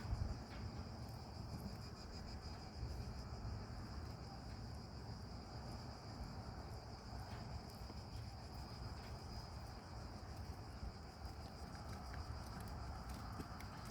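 Crickets trilling in a steady, unbroken high-pitched chorus, over a low rumble.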